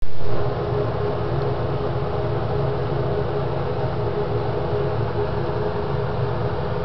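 Steady mechanical hum with hiss, holding a few fixed tones and not changing, after a brief louder moment at the very start.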